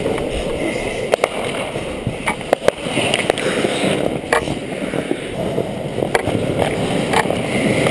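Ice skate blades scraping and carving on the rink ice, with sharp clacks from hockey sticks and puck several times.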